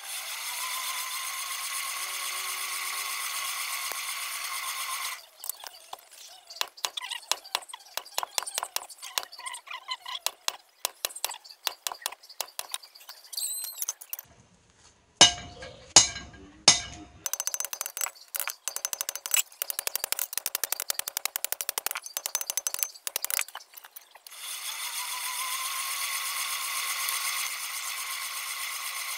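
Rapid hand-hammer blows on red-hot steel on an anvil, in quick runs with a few heavier single strikes in the middle, while the blade is being forged. Before and after, a forge blower runs, its whine rising as it spins up and then holding steady under a hiss of air.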